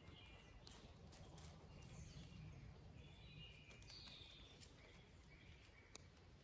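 Near silence, with faint bird calls in the background and a few faint clicks.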